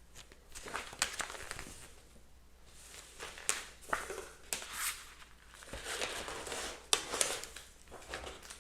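Paper pages of a paperback book being turned and handled: irregular rustling with a few sharp page flicks.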